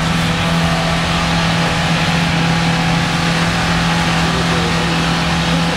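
UAZ Patriot SUV's engine running under load at steady revs as it attempts a muddy hill climb, with a steady hiss over it.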